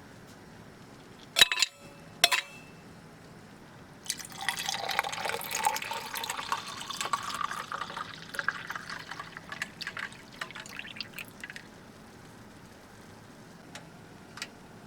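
Two sharp clicks, then liquid poured into a container for about seven seconds, ending in a few drips.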